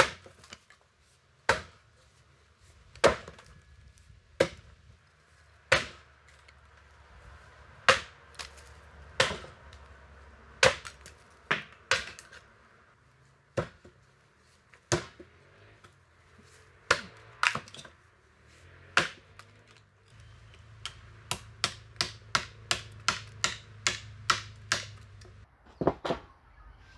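Axe chopping into a large block of timber, cutting out a notch: single sharp blows a second or two apart, then a quicker run of about three lighter chops a second near the end.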